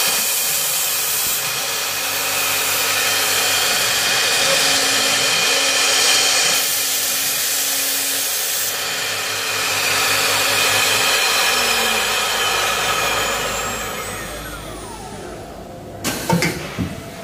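Three-head pneumatic CNC router running, its high-speed spindles whining steadily over a hiss of cutting and air. About three quarters of the way through the spindle winds down in a falling pitch. A few sharp knocks follow near the end.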